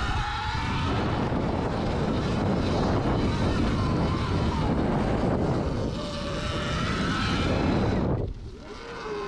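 Sur-Ron electric dirt bike being ridden hard off-road: the motor's whine rises and falls with speed under heavy wind and tyre noise. It drops away sharply about eight seconds in as the bike slows.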